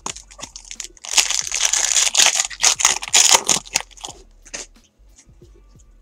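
Foil wrapper of a 2017 Topps Series 1 baseball card pack being torn open and crumpled: a dense crinkling from about a second in until nearly four seconds in. After it come light clicks and rustles as the stack of cards is handled.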